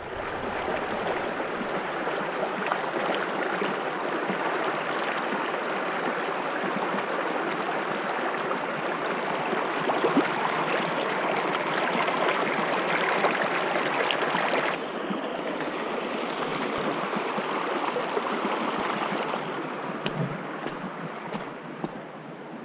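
Shallow mountain stream rushing and splashing over rocks in a steady rush of water noise, a little quieter for the last few seconds.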